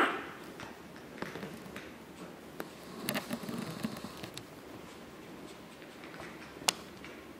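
Chihuahua puppies' claws pattering and tapping lightly on a hard tiled floor as they scamper about, with a brief puppy vocal sound right at the start and a single sharp tap near the end.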